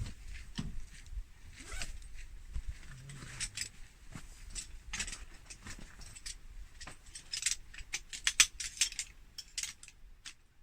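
Irregular clicks and rustling from small objects being handled, with a quick run of sharp clicks near the end.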